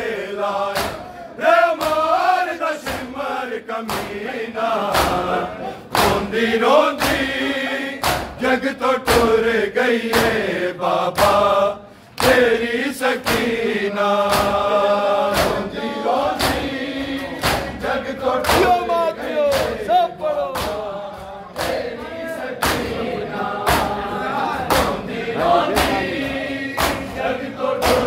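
Men's voices chanting a Shia noha lament in unison. A steady rhythm of chest-beating (matam) slaps from the mourners keeps the beat.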